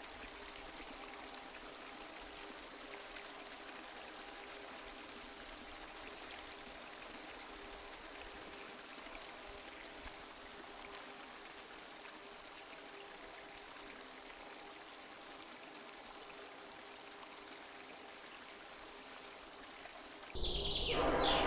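A faint, steady rushing hiss like running water, with a few faint steady tones beneath it. About a second before the end, a much louder sound cuts in abruptly.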